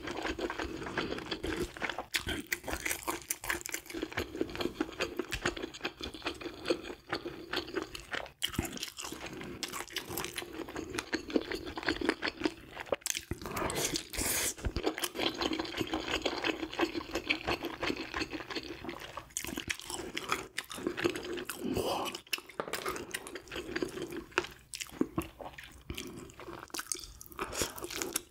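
Close-miked chewing and crunching of grilled fish: dense, irregular crackling mouth sounds.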